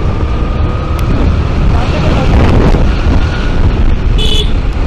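Wind rushing over the microphone on a moving Honda Activa scooter, a loud steady rumble of wind and road noise. A short high tone sounds about four seconds in.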